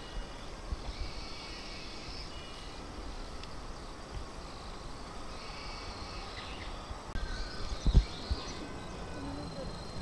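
Outdoor background noise with faint, short high chirps throughout and low rumbles, and a single low thump about eight seconds in.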